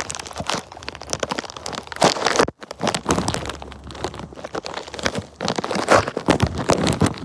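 Paper crinkling and rustling in a dense run of quick, irregular crackles, breaking off for a moment about two and a half seconds in.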